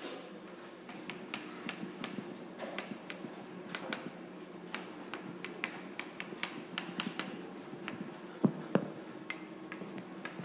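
Chalk writing on a blackboard: an irregular run of small taps and clicks as the symbols are written, over a steady low room hum, with two louder knocks about eight seconds in.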